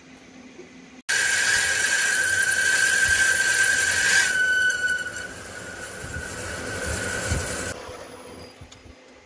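Metal lathe turning a brass fitting while a twist drill held in the tailstock chuck bores into it, giving a loud, high-pitched squeal from the cut. The squeal starts abruptly about a second in and stops a little before the end, leaving the steady running noise of the machine.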